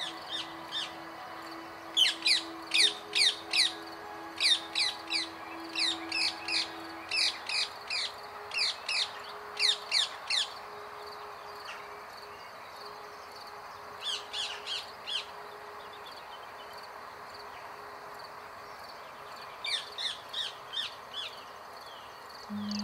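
Rose-ringed parakeets calling: rows of sharp, shrill screeches, each sliding steeply down in pitch, about three a second. They come in three bouts, the longest in the first half and two shorter ones after pauses.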